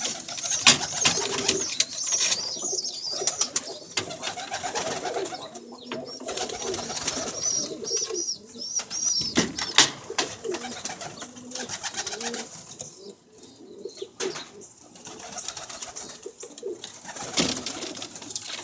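Domestic pigeons cooing, with many scattered sharp clicks.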